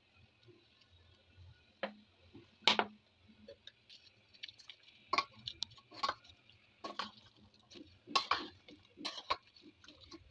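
Utensils clacking against a metal cooking pot as ingredients go in and are stirred with a spatula. It is a string of separate knocks, about one a second in the second half, with the loudest about a quarter of the way in.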